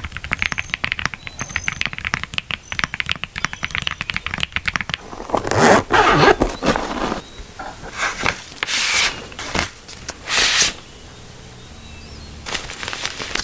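Typing on a blockboy Split65 gasket-mounted aluminum mechanical keyboard with tactile switches: fast keystrokes clacking for about five seconds. Then come several longer, noisier scraping sounds of about a second each, and typing starts again near the end.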